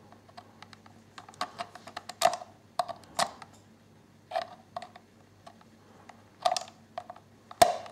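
Hand screwdriver turning a screw into a plastic gimbal mount on a quadcopter's underside: a scatter of light, irregular clicks and short scrapes from the tool and the plastic, the loudest near the end.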